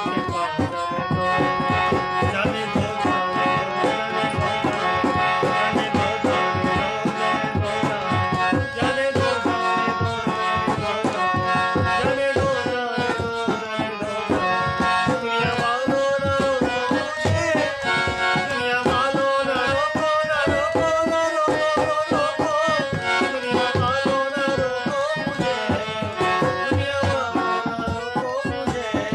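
Devotional music: a dholak drum played by hand in a fast, steady rhythm under a melody on a bulbul tarang (keyed zither), with a man singing.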